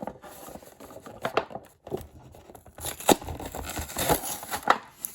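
Toy packaging being torn and pulled open by hand: irregular rustling and tearing of cardboard and plastic with a scatter of sharp clicks and snaps, the loudest about three seconds in and near the end.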